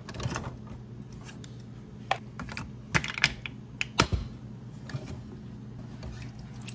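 Plastic clicks and clunks from a single-serve pod coffee maker as its lid is released, lifted and shut, a quick run of sharp snaps with the loudest about four seconds in. A steady low hum runs underneath.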